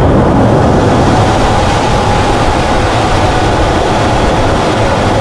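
Steady rumble and rush of a fighter jet's engine and airflow, heard from inside the cockpit in flight.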